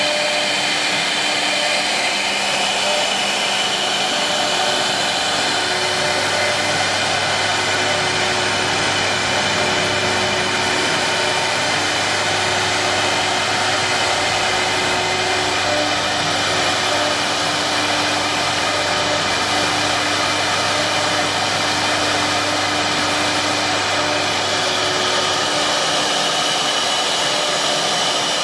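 Wood CNC router running: its high-speed spindle whines steadily through a continuous hiss as it cuts wood, with a few tones shifting slightly as the cut moves.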